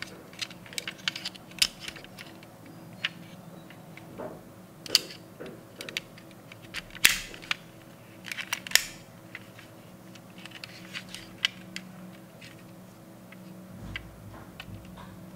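Small sharp clicks and snaps of a die-cast metal toy Land Rover Defender's hinged doors being swung open and pressed shut, with light handling knocks; the loudest snaps come about seven and nine seconds in.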